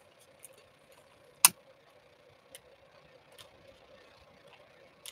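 A sharp click about a second and a half in as a long-nosed utility lighter is sparked, with a few fainter ticks before and after over a faint steady hum, as its flame is passed over fresh resin to pop surface bubbles.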